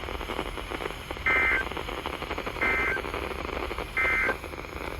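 Emergency Alert System (SAME) end-of-message code on NOAA Weather Radio: three short, identical buzzy two-tone data bursts, a little over a second apart, over steady radio hiss. They mark the end of the special marine warning.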